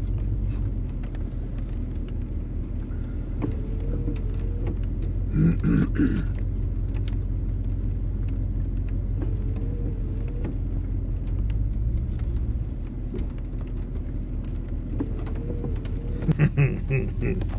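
Truck engine running while backing up to pull a stuck truck out of deep water on a tow strap, a steady low rumble with a faint wavering whine coming and going. A short louder noise comes about six seconds in.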